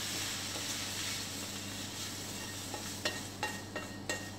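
Stir-fried vegetables sizzling with a steady hiss. From about three seconds in, a metal slotted spoon clinks several times against the pan and pot as the vegetables are scooped into the rice.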